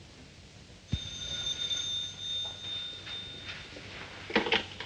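A telephone bell rings once for about two seconds, a steady ring of several pitches that starts with a knock about a second in, followed by a few sharp clicks near the end.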